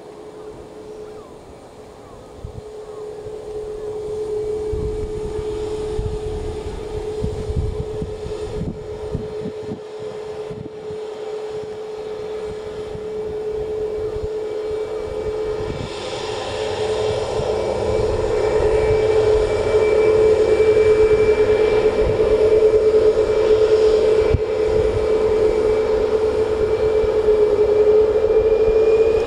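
Ryanair Boeing 737's jet engines spooling up from taxi power to take-off thrust: a steady whine that grows louder, steps up sharply about halfway through and stays loud, edging up in pitch near the end as the aircraft starts its take-off roll.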